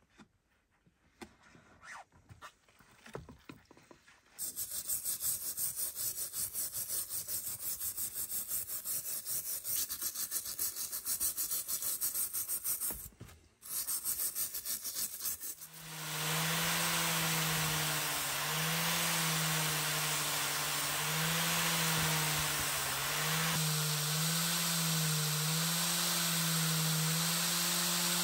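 Loosened rust being scraped off an old iron horseshoe with a metal scraper blade in rapid strokes, starting about four seconds in with a short break near the middle. Then an electric drill fitted with a wire wheel runs with a steady hum and hiss, its pitch wavering as the horseshoe is pressed against the spinning wheel.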